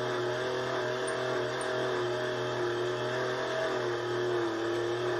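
Hand-cranked insulation tester (megger) generator being turned steadily, giving a steady whine of a few tones that sag slightly in pitch near the end as the cranking slows a little.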